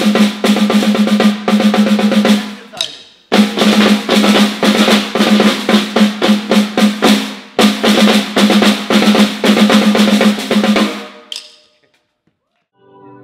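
Three snare drums played together in fast, rolling stick patterns, with a short break about three seconds in. The playing stops about eleven seconds in.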